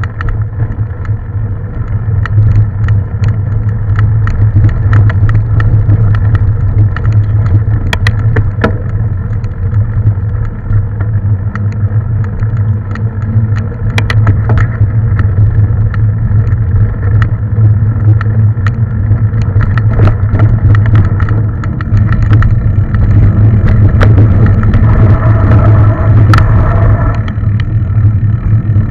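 Mountain bike ridden fast over trail, heard on an on-board camera: a loud, steady low rumble of wind and ground noise with frequent sharp rattles and clicks from the bike over bumps. A higher ringing tone joins in near the end.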